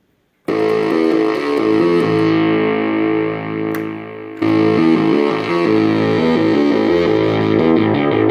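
Sequential Circuits Pro-One analog monophonic synthesizer playing a buzzy, distorted-sounding line of notes. About two seconds in its filter closes down and the tone turns dull and quieter, then it snaps back bright about four seconds in and carries on with a run of changing notes.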